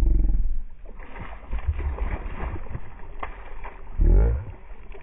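A hooked barramundi thrashing at the water's surface on the line, with irregular splashing and a louder splash about four seconds in. A low thump comes at the very start.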